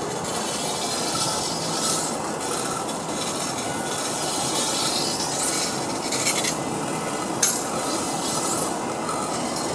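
Wooden wheeled festival float rolling along the road, its wheels rumbling, rattling and squeaking. A sharp clack comes about seven and a half seconds in.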